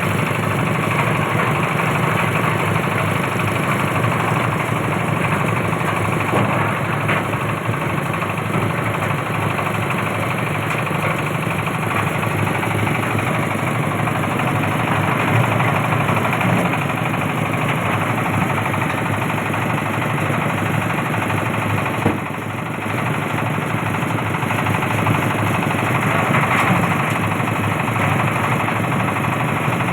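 Engine-driven oil palm fruit threshing machine running steadily, with one sharp knock about two-thirds of the way through.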